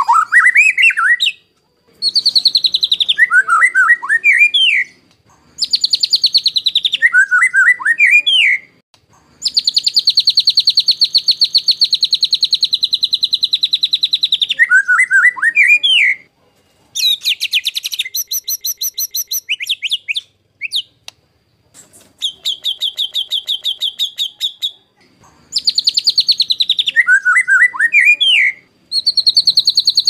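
White-rumped shama (murai batu) singing harsh rapid-fire bursts ('tembakan kasar'): phrases of fast rattling repeated notes, many ending in lower twisting whistled notes, with short pauses between them and several phrases repeated alike, as in an edited tutor recording.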